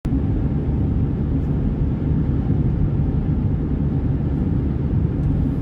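Steady low rumble of road noise inside a moving car's cabin, tyres and engine at highway driving speed.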